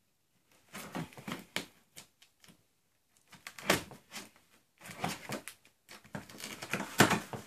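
Cardboard box being worked open by hand: irregular scrapes, clicks and rustles of cardboard and packing tape, loudest about a third of the way in and near the end.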